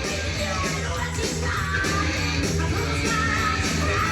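Rock song with a singing voice over a steady bass and beat, played from a vinyl record on a turntable.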